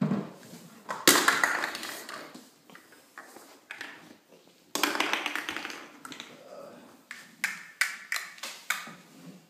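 Toys clattering on a hardwood floor: a loud knock with a rattling tail about a second in and another near five seconds in, then a string of quick taps near the end.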